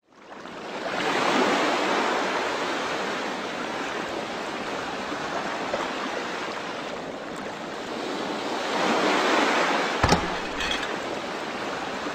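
Logo-intro sound effect: a rushing, surf-like noise that swells about a second in, eases off, and swells again near nine seconds, followed by a few sharp knocks with a low thud around ten seconds.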